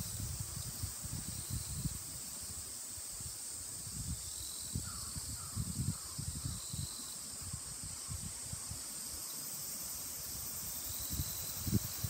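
Outdoor ambience: wind buffets the microphone in irregular low rumbles over a steady high-pitched hiss. About five seconds in, a bird calls about five times in quick succession, each call short and falling.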